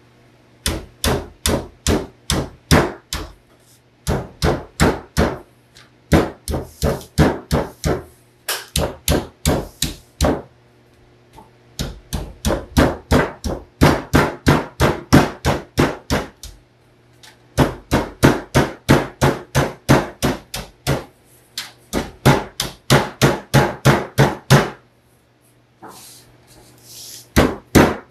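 A hammer striking along the edge of a sheet of metal laid on a wooden table, in runs of about three blows a second broken by short pauses.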